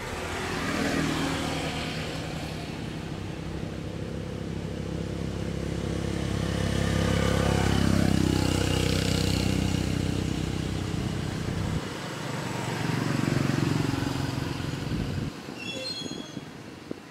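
Engine of a passing motor vehicle: a low rumble that swells to its loudest about halfway through, swells once more, then drops away near the end.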